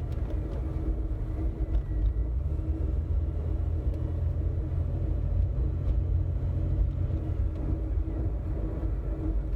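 A 2000 Jeep Cherokee XJ on the move, heard from inside the cabin: a steady low road rumble with a faint steady hum riding over it. This is the odd speed-dependent noise that persists after new wheel hub assemblies, rotors and brake pads, and it fades when the vehicle goes slow enough.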